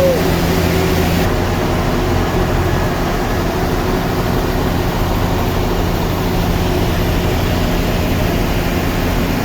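Sawmill machinery running steadily: a loud, even drone with a low hum under a constant hiss.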